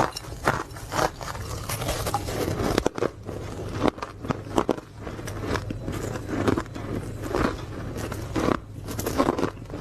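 Ice being bitten and chewed close to the microphone: a rapid, irregular run of crisp crunches and cracks.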